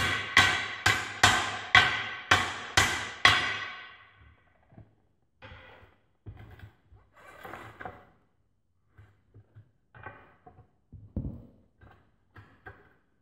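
Hammer blows on the steel lock ring of a split loader rim, seating the ring into its groove: about seven sharp, ringing metal strikes roughly half a second apart, then lighter scattered knocks and clicks of tools on the rim.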